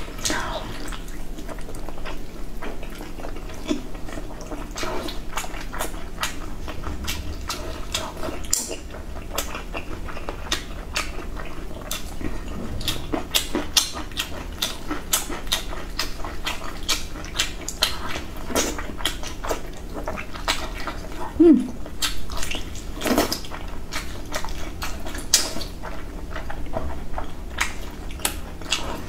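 Close-up mouth sounds of a person eating fatty braised intestine: wet chewing, lip smacks and sucking clicks, many a second, with a short pitched hum about two-thirds of the way through.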